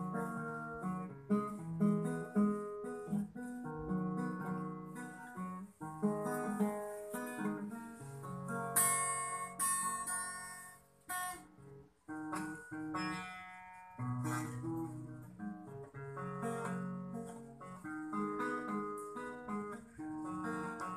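Background music: an acoustic guitar playing a melody with plucked and strummed notes.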